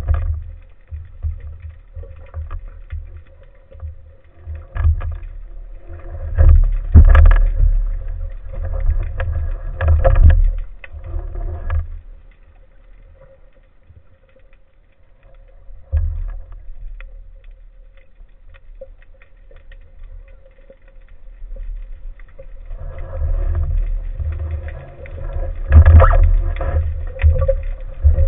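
Muffled underwater rushing and knocking of water against a waterproof camera housing mounted on a speargun, coming in surges as the spearfisher moves and ascends, with a quieter stretch in the middle and louder surges again near the end as he nears the surface.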